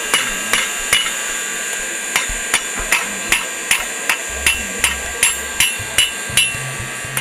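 Blacksmith's hammer striking red-hot steel on an anvil, drawing a split bar end out to a point: a steady run of ringing blows, about two and a half a second, with a short pause about a second in.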